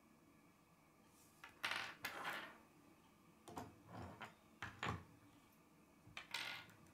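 K'nex plastic pieces clicking and rattling as they are handled and snapped onto the model, in three short bouts: about a second and a half in, around four to five seconds, and near the end.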